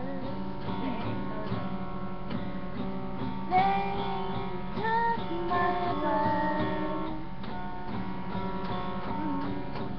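Acoustic guitar strummed steadily while two girls sing a slow song together.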